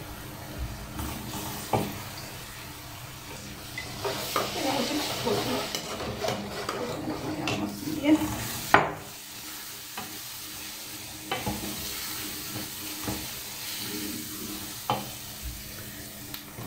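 Onion and tomato paste sizzling in a pot while being stirred with a wooden spoon, the sizzle louder for a couple of seconds about four seconds in, with a few sharp knocks against the pot.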